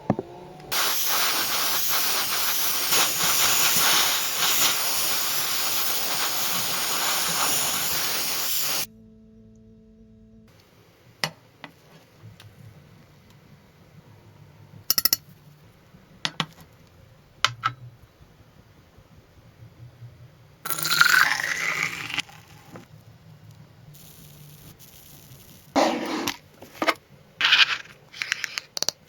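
Paint spray gun spraying in one long, steady hiss of about eight seconds, then stopping. After a quiet stretch with a few clicks come a shorter spray burst and several brief bursts near the end.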